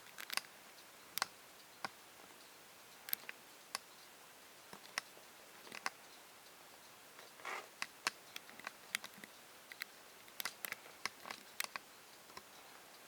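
Irregular sharp clicks and light taps, a dozen or more at uneven spacing, with a short scrape about seven and a half seconds in; no fan motor is heard running.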